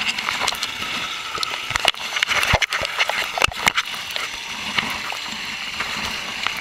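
Water gushing and splashing down a waterslide chute, heard close up as a steady rush, with a cluster of sharp knocks and bumps between about two and four seconds in.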